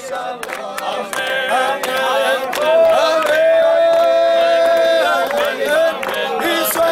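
Voices singing a slow hymn with long held notes, one held for about two seconds near the middle.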